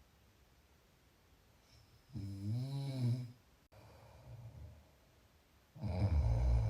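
A person snoring. After a quiet pause, a drawn-out snore about two seconds in rises and falls in pitch. A louder, lower snore begins near the end.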